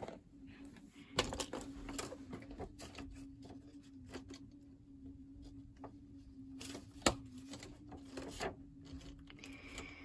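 Handheld camera handling with rustling and scattered clicks, and a sharp click about seven seconds in, over a steady low hum.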